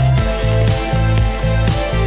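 Upbeat background music with a steady beat, bass line and ticking hi-hat.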